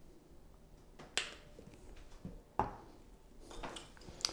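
Dijon mustard squirted from a plastic squeeze bottle into a skillet: two short squirts about a second and a half apart, then fainter squeezing sounds near the end.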